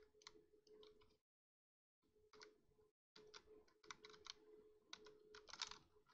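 Faint computer keyboard typing: bursts of quick keystrokes, broken by two short dead-silent gaps about one and three seconds in.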